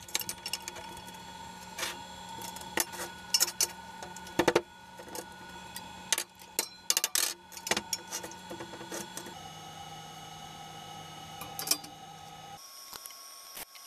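Steel bar stock and metal bar clamps clinking and knocking on a steel table as pieces are positioned and clamped, with sharp irregular clicks throughout over a faint steady hum.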